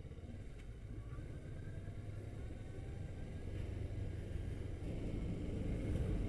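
Motorcycle engine and low road rumble, muffled and faint, rising gradually in pitch and loudness as the bike speeds up.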